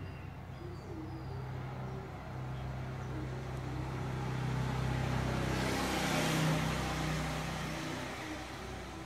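A motor vehicle passes by: a low engine hum with tyre hiss that grows to its loudest about six seconds in, then fades away.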